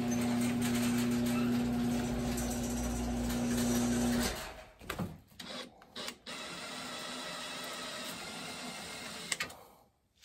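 Cordless drill running under load, its bit drilling out a rivet in a car door's sheet-metal edge; the steady motor whine stops about four seconds in. After a few brief starts and stops it runs again more quietly, ending with a click near the end.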